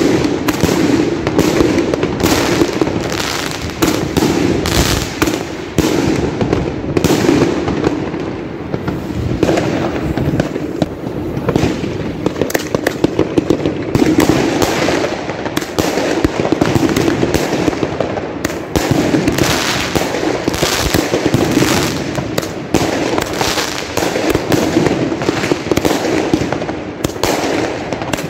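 Consumer aerial fireworks going off in close succession: a constant run of bangs and crackling bursts with no pause.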